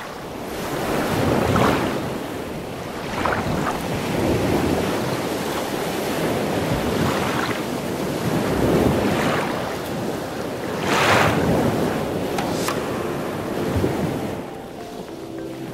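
Ocean surf breaking and washing up a sandy beach, the rush swelling and falling every few seconds, with a stronger surge about eleven seconds in. Soft music comes in near the end.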